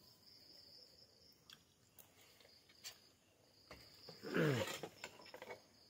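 Faint steady chirring of crickets, with a few small clicks. About four and a half seconds in, a short falling voice-like sound stands out as the loudest thing.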